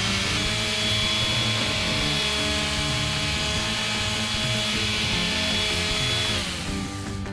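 Maxsell MPS 3300 280-watt palm sander running on a wooden block, its motor whining steadily under the scrub of the quarter-sheet pad on the wood. About six and a half seconds in it is switched off and the whine falls in pitch as the motor winds down.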